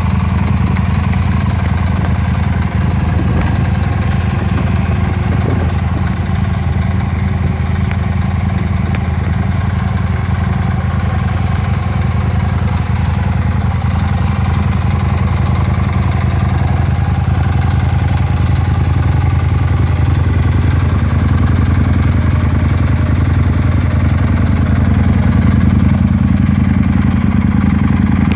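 2007 Aprilia Tuono 1000R's 998 cc V-twin engine idling steadily.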